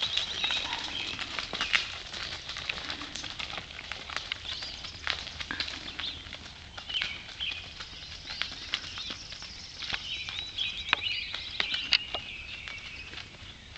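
Horses' hooves clopping irregularly at a walk on a gravel and dirt track, growing fainter, with birds chirping and singing throughout.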